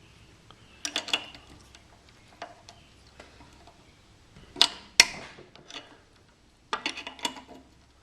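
Metal tool clicks and clinks as the two carburetor mounting bolts on a Tecumseh small engine are worked loose: scattered sharp clicks, two louder ones in the middle and a quick run of clicks near the end.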